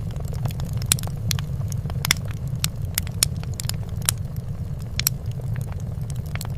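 Fireplace fire crackling: irregular sharp pops and snaps, a couple a second, over a steady low rumble.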